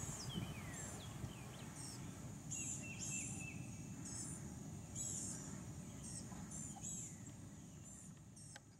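Outdoor ambience: short, high chirping calls repeating irregularly, with a few lower falling notes, over a faint low rumble, all fading out near the end.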